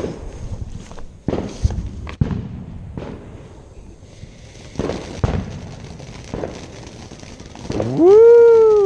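Small consumer fireworks going off: about six sharp bangs and pops over the first five seconds or so, some close together. Near the end a man lets out a loud whooping shout.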